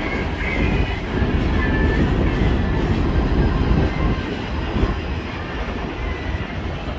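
CSX freight train rolling past, a steady loud rumble of the cars on the rails, with a faint high wheel squeal over the first couple of seconds.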